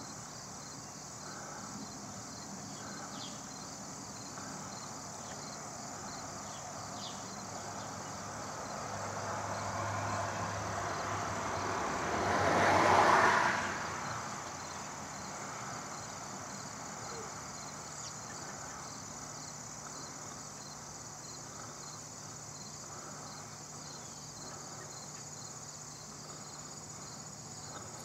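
Steady high-pitched chirring of summer insects, with a vehicle passing by about halfway through, growing louder, peaking and fading away within a few seconds.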